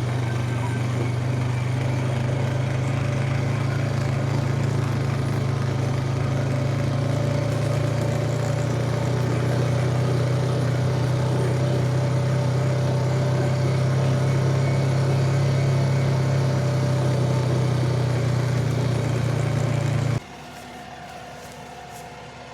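Tractor engine running steadily under load, a loud even drone. About twenty seconds in it cuts off abruptly to a quieter engine sound.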